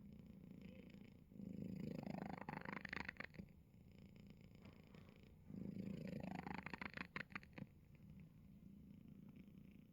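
Domestic cat snoring, faint, with a fine purr-like rattle on every breath. Two louder breaths come about a second and a half in and again about five and a half seconds in, each lasting about two seconds with a tone that rises partway through. Quieter rattling runs between them.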